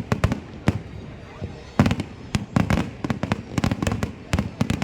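Fireworks going off in a display: clusters of sharp bangs and crackles with deep booms under them, coming in quick volleys every half second to a second.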